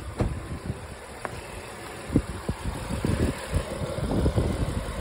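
2017 Honda Ridgeline's 3.5-litre V6 idling, run to circulate freshly filled distilled water through the cooling system during a coolant flush.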